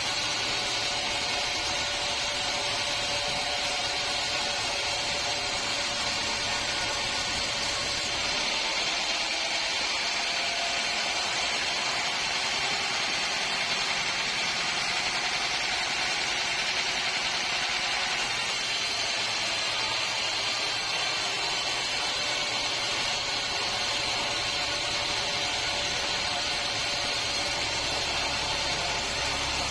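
Sawmill machinery running steadily, a constant high saw noise with a steady hum under it and no breaks.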